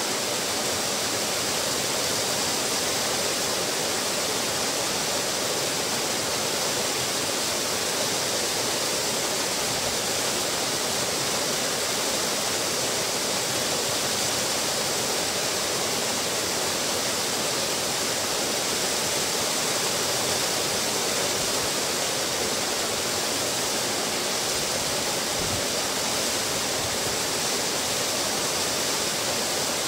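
Small waterfall splashing steadily into a pool below, an even rush of falling water.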